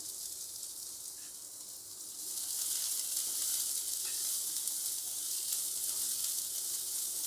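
Chopped onions sizzling in hot oil in a wok as they are sautéed with ginger and garlic, stirred with a spatula. The sizzle is a steady hiss that grows louder about two seconds in.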